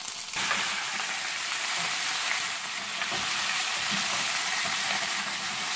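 Vinegar-coated pork cubes and onions sizzling in hot canola oil in a saucepan. The sizzle jumps louder a moment in as the pork goes into the pan, then holds steady while the pieces are stirred with a spoon.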